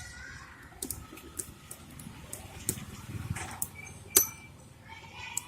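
Scattered small clicks and taps of tools against the plastic and metal parts of a Xiaomi Redmi Note 3 smartphone as its motherboard is eased out, with one sharper click about four seconds in.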